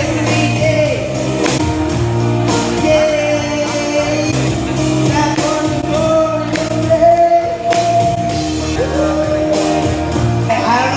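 Karaoke: an amateur singing into a microphone over a loud backing track with a steady beat, both coming through the PA loudspeakers.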